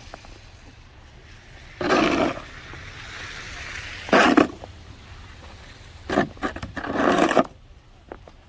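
Snow being cleared off a car: four or five rough scraping sweeps, each about half a second long, with short pauses between them.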